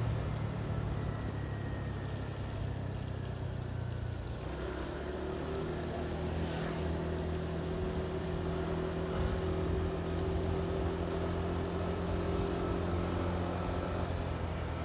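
Motorcycle engine running steadily as it is ridden along a wet road, over road noise. The engine note changes about four seconds in, then holds steady.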